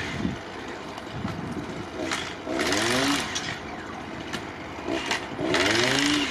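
A small engine revved in repeated bursts about every three seconds, each burst falling back in pitch, idling between them.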